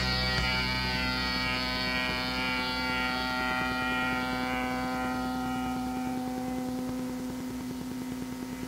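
Final distorted electric guitar chord of a lo-fi 4-track punk demo ringing out and slowly fading, with one low note holding steady under it.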